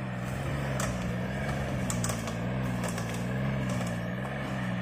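Multicab 4x4 mini truck engine running at low revs as it crawls along a muddy track, its pitch rising and falling a little with the throttle. A few sharp snaps and clicks come through along with it.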